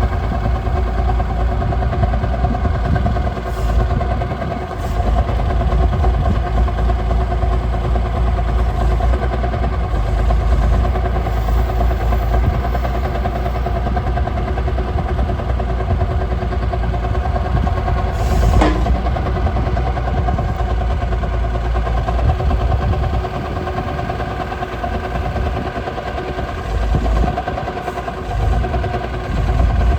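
Liebherr 932 excavator's diesel engine running steadily, with one short sharp sound about two-thirds of the way in.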